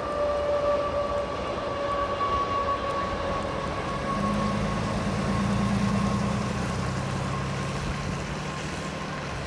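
BNSF intermodal Z train running past at speed, a steady rumble with a thin high tone throughout. A lower drone comes in about four seconds in.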